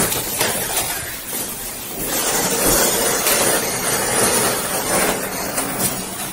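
Elevator ride: a steady rushing hiss with some rustling as the cab travels and its doors open.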